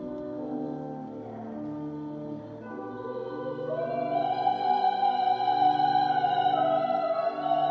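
Pipe organ playing sustained chords. About halfway through, a louder high melody note enters and is held, stepping up once more before the end, and the sound grows fuller.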